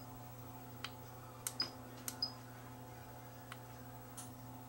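Button presses on SEQURE HT140 hot tweezers while the temperature setting is dialed: about half a dozen sharp clicks, some followed by a short high beep.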